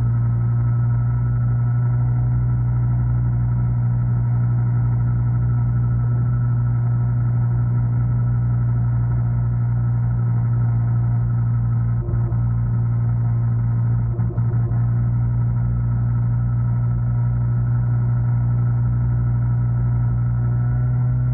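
A 49cc two-stroke engine of a gas stand-up scooter running at a steady high pitch under constant throttle while riding, with two brief dips about twelve and fourteen seconds in.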